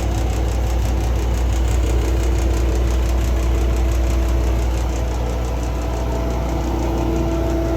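Baileigh IJ-666-HH woodworking jointer running steadily with no load: a low motor hum with a steady higher tone and a fast, even pulsing from the spinning cutterhead.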